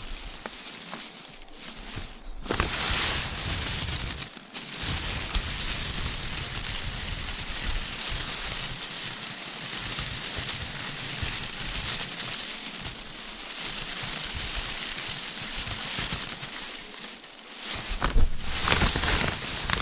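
Confetti sound effect: a dense, continuous crackling rustle of paper confetti. It cuts in sharply about two and a half seconds in, and there is a louder burst near the end.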